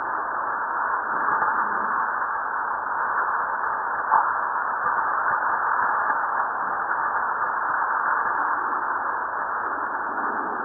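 Seismometer recording from Fuego volcano played back as sound: a steady rushing hiss of ground noise and tremor, with one sharp pop about four seconds in.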